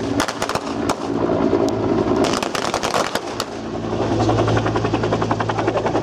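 Machine-gun fire in rapid bursts: a ragged burst in the first second, then a longer, dense burst about two to three and a half seconds in. Under it runs the steady beat of an AH-1S Cobra attack helicopter's rotor and engine, which is all that is left near the end.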